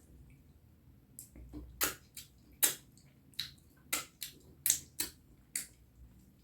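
Close-miked chewing of curry and rice: a quiet second, then an irregular run of about a dozen sharp, wet mouth smacks and clicks.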